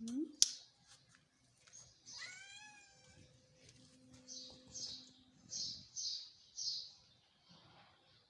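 Pet parrots calling: a sharp click about half a second in, then a call with bending pitch at about two seconds, followed by a run of about six short, harsh, high chirps.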